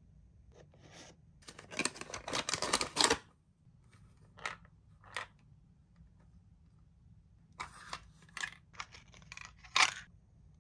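Hands handling plastic toys and their packaging: a quick run of clicks and rustles about two seconds in, a couple of single clicks, then another cluster of clicks near the end.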